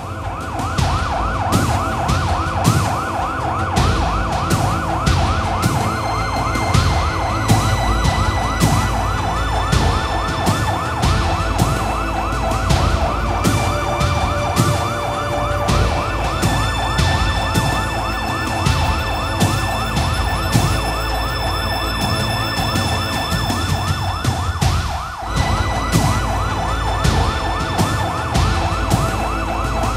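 Police-style siren, a fast yelp of quickly repeating rising sweeps, over a steady beat and deep bass, as in a TV programme's closing sound bed.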